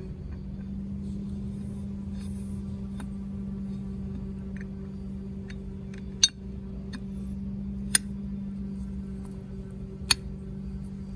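Steady low hum at one pitch over a low rumble, with scattered light ticks and three sharp metallic clicks about six, eight and ten seconds in, as parts and tools are handled during the sail drive reassembly.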